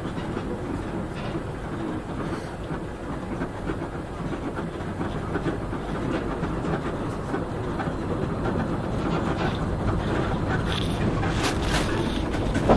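Moscow monorail car running between stations, heard from inside the cabin: a steady running noise that slowly grows louder. A few sharp clicks come near the end.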